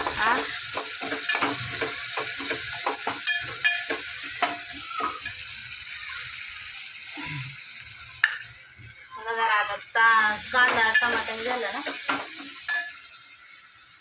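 Steel spoon scraping and clinking against a stainless steel pot as a tomato and spice base for sambar is stirred while it fries, with a steady sizzle. The stirring strokes come quickly at first, then thin out and get quieter about halfway through.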